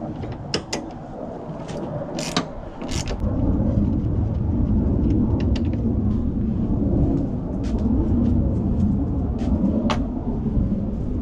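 Light metallic clicks and clinks of hand tools. From about three seconds in a steady low rumble takes over, with scattered clicks on top, including sockets clinking in a plastic socket case near the end.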